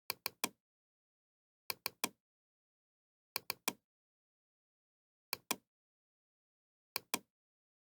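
Sharp clicks in quick groups of three, then of two, repeating about every one and a half to two seconds, with dead silence between the groups.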